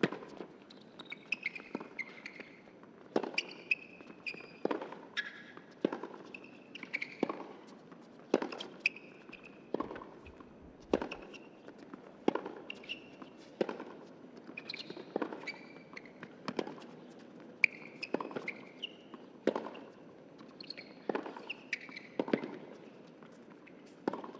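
Tennis rally on a hard court: racquets striking the ball and the ball bouncing, a crisp impact about every second, with short shoe squeaks on the court between shots.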